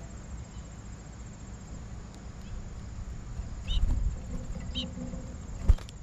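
Backyard feeder ambience over a steady high insect trill: two short, high bird chirps a second apart past the middle, with a low rumble around the first, then a single sharp knock near the end, the loudest sound.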